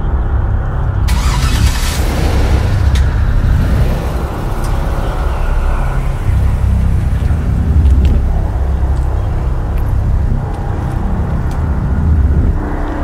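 Hummer H2's V8 engine starting about a second in, then running as the SUV pulls out and drives away.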